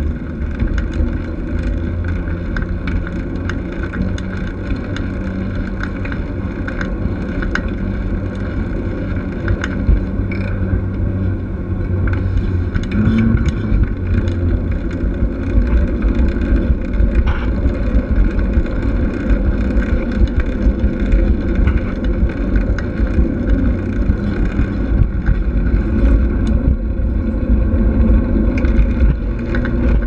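Mountain bike being ridden on a paved path, heard from a camera mounted on the bike: a steady low rumble of tyres and wind, with frequent small rattles and clicks from the bike. It gets somewhat louder partway through.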